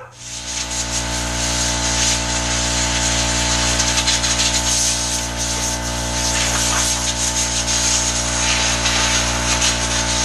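Electric power tool switched on, spinning up within about a second, then running steadily with the noise of it working the cherry wood.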